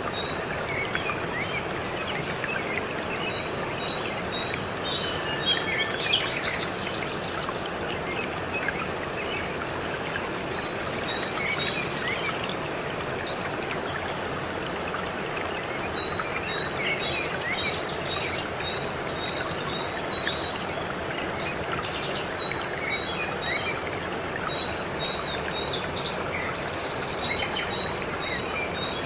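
Waterfall rushing steadily, with songbirds chirping over it: scattered short calls and several runs of quick, evenly repeated high notes.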